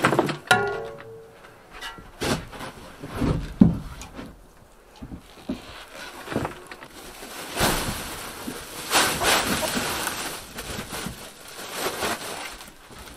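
A shovel scraping old wood-shaving bedding off a coop's wooden floor and tipping it into a plastic tub: irregular scrapes and thunks, with a longer rustle of shavings sliding out of the shovel about halfway through.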